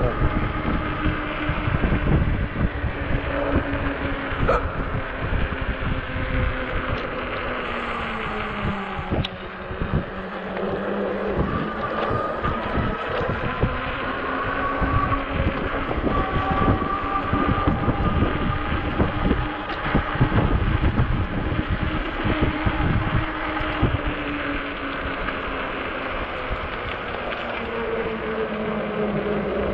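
Electric hub motor of an Ecotric 20-inch e-bike whining as it rides, its pitch sliding down as the bike slows about eight to ten seconds in and rising again as it picks up speed. Wind buffets the microphone underneath.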